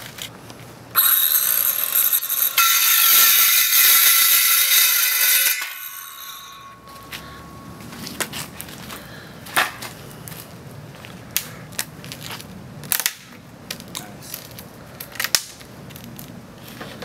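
Ryobi cordless circular saw starting about a second in and cutting through PVC pipe with a loud high whine for about four and a half seconds, then spinning down. After it, a handful of light clicks and knocks from the cut pipe being handled.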